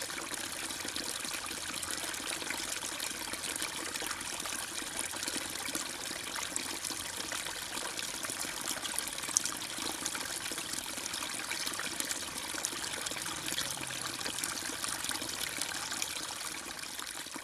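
Steady trickling and bubbling of aquarium water, with one sharp click about halfway through.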